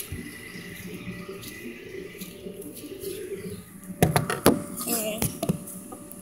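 Faint background voices, then a few sharp knocks and rustles about four seconds in as the phone is handled and swung around.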